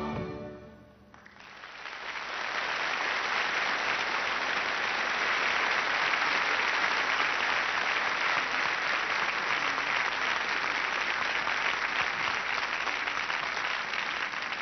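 TV studio audience applauding after a choir's song: the choir's last chord dies away at the start, and about a second later the clapping swells in and holds steady.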